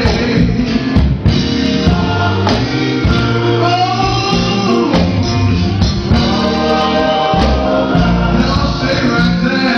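Gospel song with a male-voice group singing over bass, keyboard and drums.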